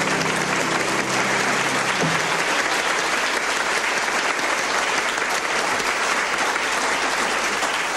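Studio audience applauding steadily, a dense patter of many hands clapping. For about the first two seconds the last upright-piano chord still rings under the clapping, then fades out.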